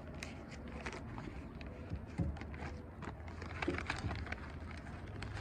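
Faint handling noises: scattered light clicks and paper rustling as wrapped chipper knives are handled. A low steady hum runs underneath.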